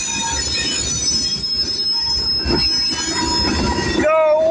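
A passing train with its wheels squealing against the rails: steady high-pitched squeal over a low rolling rumble. Near the end a loud, held high-pitched call cuts in over it.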